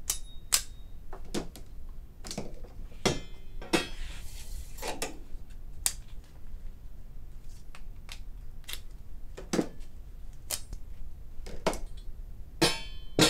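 Plastic scraper blades being unclipped from the stainless steel beater assembly of a Taylor 794 soft-serve machine: scattered clicks and light metallic clinks, with a brief scrape about four seconds in. A louder clatter of metal near the end.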